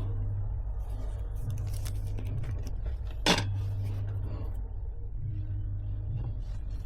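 A single sharp click about three seconds in, with a few fainter ticks, over a steady low hum.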